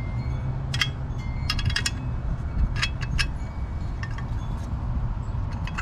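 Steel 3/8 wrench clinking on the cover's mounting nut while tightening a brake caliper cover: scattered sharp metallic clicks with a short ring, a quick cluster of them about one and a half seconds in and two more about three seconds in.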